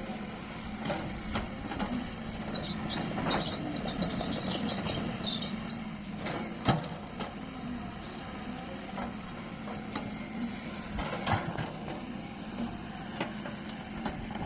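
Diesel engine of heavy construction machinery running steadily, with scattered metallic knocks and clanks, the loudest about seven seconds in. A high chirping is heard for a few seconds near the start.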